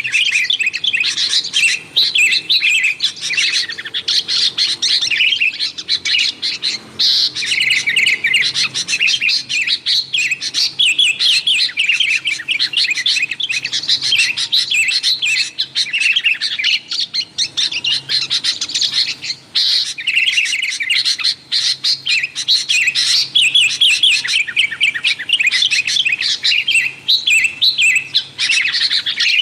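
Sooty-headed bulbuls (kutilang) chattering busily: a dense, unbroken stream of quick overlapping chirps and short whistled notes.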